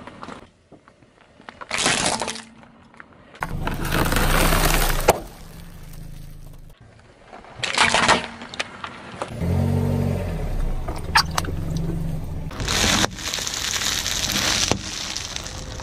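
A car tyre rolling over and crushing packaged food, including instant-noodle packets, with sharp crunching and crackling bursts about two, eight and thirteen seconds in. The car's engine hums low between the crunches.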